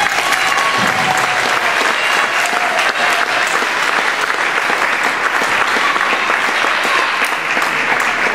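Audience applauding steadily after a children's performance.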